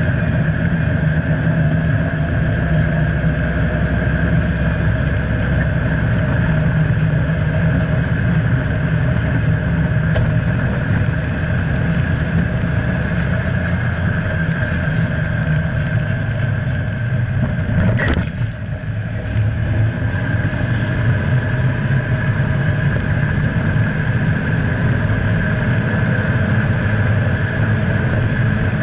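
Steady road and running noise of a Jeep Wrangler JKU Rubicon driving on pavement, heard up close from under the vehicle by the front axle. About two-thirds of the way through there is a sharp click, and the noise drops for a moment.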